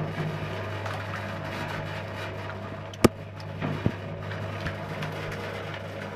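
Mechanical abon (meat floss) frying machine running, a steady hum as its stirring paddles turn through the frying meat. A sharp knock sounds about three seconds in, with two lighter knocks shortly after.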